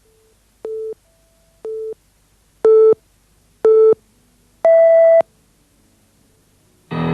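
Electronic countdown beeps: four short, steady beeps one second apart, the last two louder, then a longer, higher-pitched final beep. Music begins just before the end.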